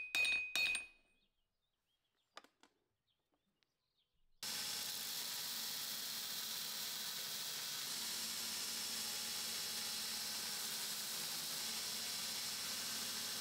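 Hammer blows ringing on a steel anvil, peening the pommel fitting, end within the first second. After a near-silent pause, a belt grinder cuts in suddenly about four seconds in and runs steadily as the steel pommel is held against the belt.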